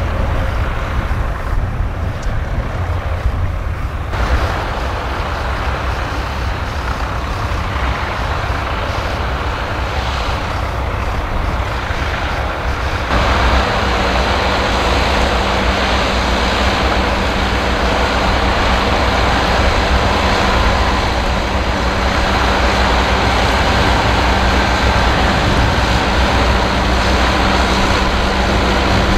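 Fendt 724 tractor's six-cylinder diesel engine running steadily under load as it pulls a six-furrow plough through the field. About halfway through the sound becomes louder and closer.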